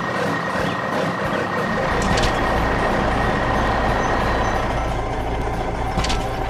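Heavy construction-vehicle engine sound effect: a steady engine din, with a deep low rumble that comes in about two seconds in and two short hisses.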